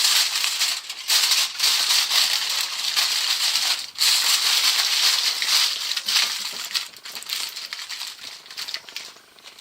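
Aluminium foil crinkling and rustling as it is wrapped and pressed around a quince, in spells of handling with short breaks, dying away near the end.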